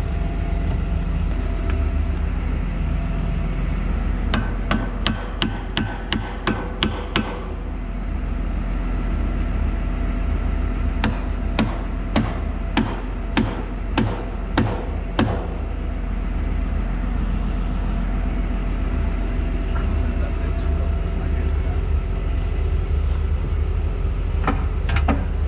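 Hammer blows on metal, each with a short ringing: a run of about ten quick strikes, then after a pause about eight slower ones. A steady low engine hum runs underneath.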